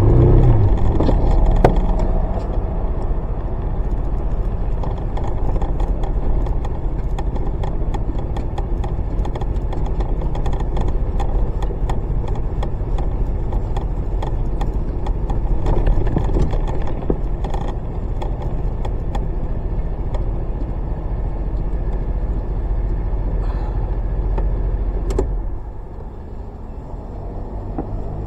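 Honda PCX125 scooter riding along, its single-cylinder engine, road noise and wind on the mounted camera's microphone making a steady low rumble, with scattered small clicks and rattles. The rumble drops sharply about 25 seconds in.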